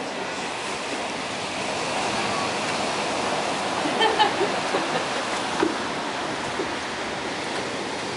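Ocean surf washing steadily on a beach, with a few brief murmured voices about halfway through.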